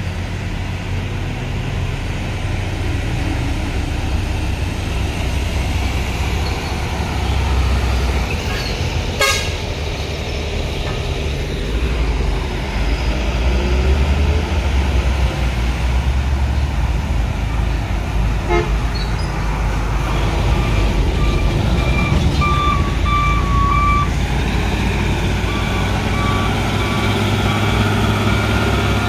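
Heavy truck engines running with a steady low rumble. From about two-thirds of the way through, a vehicle horn sounds in a run of short toots, and again toward the end. A single sharp click about a third of the way in.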